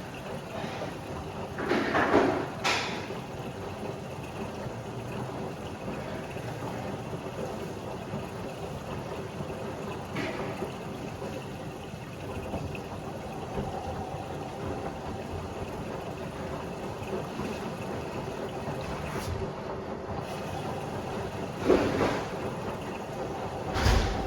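Washer-dryer combo running its wash cycle: a steady drum-turning hum with water sloshing, and a few louder thumps or swishes near the start and twice near the end.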